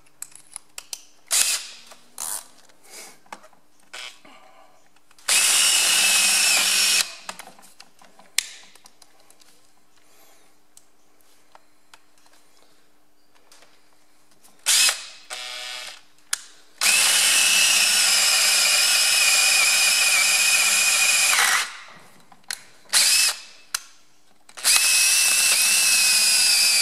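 Handheld power drill boring into the steel bearing collar of a Ferguson TE20 rear axle half shaft, run in three spells of a steady whine: briefly about five seconds in, for about four seconds from the middle, and again near the end. The drilling weakens the side of the collar so it can be split off the shaft. Between the spells come sharp clicks and knocks from handling the tools.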